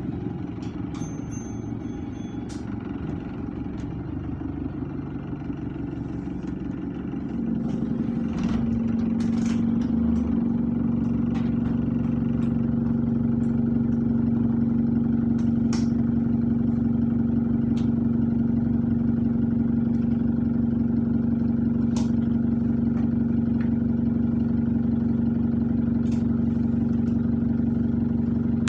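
Bus engine and drivetrain running, heard from inside the bus, with occasional sharp rattles. The drone grows louder about seven or eight seconds in and then holds at one steady pitch.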